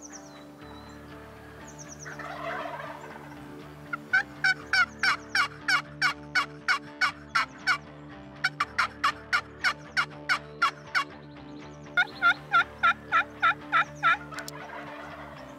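Hand-held wooden turkey box call worked into hen yelps: three runs of sharp, evenly spaced yelps, about four a second, with soft background music underneath.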